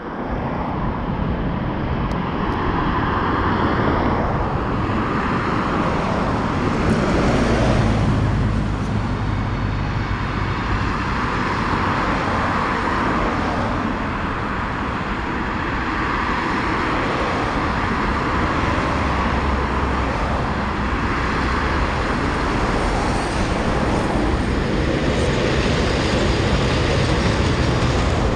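Steady roar of road traffic, swelling briefly about seven to eight seconds in.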